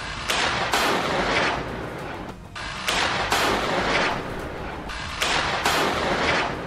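Rockets firing one after another, each launch a sharp blast trailing off into a rushing sound, about two a second with a couple of short lulls.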